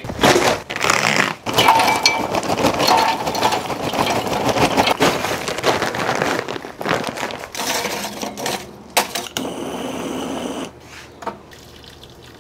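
Hardwood lump charcoal clattering as it is poured from a paper bag into a Weber kettle grill: a dense run of clinks and knocks that thins out after about seven seconds.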